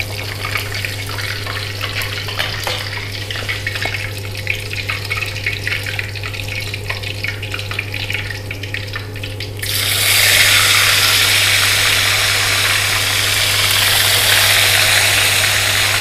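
Small fish frying in hot oil in a wok, crackling, with a metal spatula scraping and stirring. About ten seconds in, a much louder steady hiss starts suddenly and runs on.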